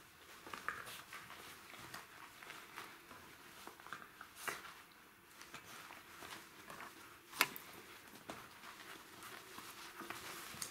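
Jack Russell Terrier puppies scuffling over a toy on a padded floor: soft pattering of paws with scattered small clicks and knocks, one sharper click a little past the middle.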